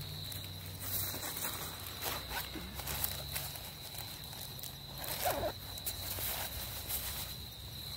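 Plastic zip-top bag crinkling as it is opened and handled, then Instafire fire-starter granules pouring out of it onto dry twigs, loudest about five seconds in. A steady high insect trill runs underneath.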